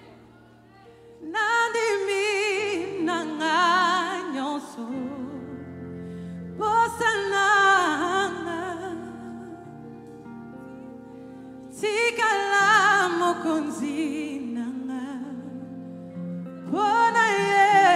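Live gospel worship song: a female lead singer sings four long phrases with wide vibrato over held keyboard chords, with short gaps between the phrases.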